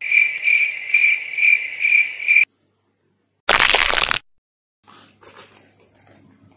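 Insect chirping in an even pulse, about two chirps a second, cutting off abruptly after about two and a half seconds. After a second of silence comes a short loud burst of noise, then faint rustling.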